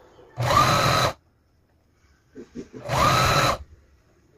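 Domestic electric sewing machine stitching in two short runs, each under a second long, its motor whine rising briefly as each run starts.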